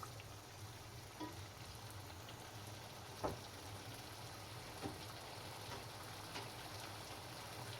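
Food sizzling as it fries in hot oil, a steady hiss with a few short pops or clicks, the sharpest about three seconds in.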